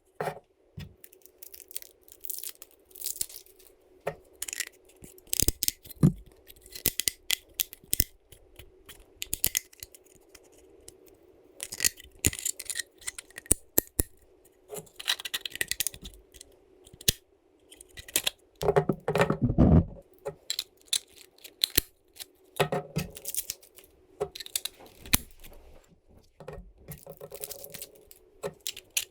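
Small metal screws, nuts and washers and 3D-printed plastic parts being handled during assembly: irregular clicks and clinks, with a longer rustling scrape about nineteen seconds in. A faint steady hum runs underneath.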